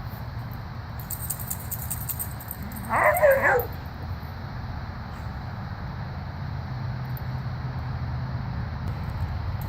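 A dog gives one short call during rough play, lasting about half a second and falling in pitch at the end, about three seconds in. A steady low rumble runs underneath.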